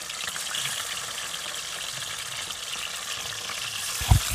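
Raw chicken pieces sizzling in hot oil in a karahi: a steady hiss with small crackles. A couple of dull low thumps near the end.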